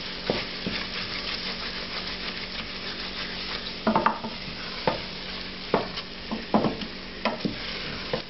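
Wooden spoon stirring a thick, sizzling sauce paste of vegetables and wine in a stainless steel pot, the wine cooking off as the paste loosens. A steady sizzle, with several sharp scrapes and knocks of the spoon against the pot in the second half.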